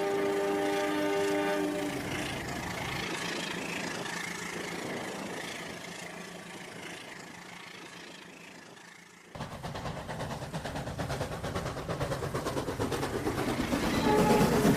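A train horn sounding with several pitches at once and stopping about two seconds in. After a cut, a fast even clatter of a train running on the rails grows steadily louder.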